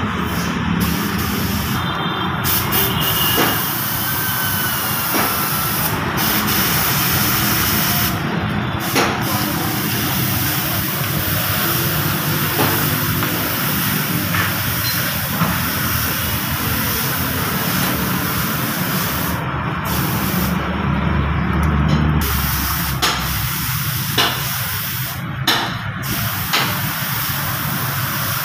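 Gravity-feed paint spray gun spraying a car body panel: a steady hiss of compressed air and atomised paint, cut off briefly several times as the trigger is let go between passes.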